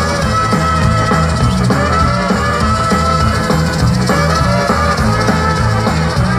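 Live brass band (trubački orkestar) with trumpets and tubas, backed by electric guitars and a drum kit, playing a rock song at full volume.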